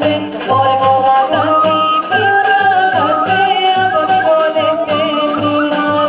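A young woman sings a Bulgarian folk song through a microphone, holding long notes with ornamented turns. Under the voice runs instrumental accompaniment with a steady bass beat.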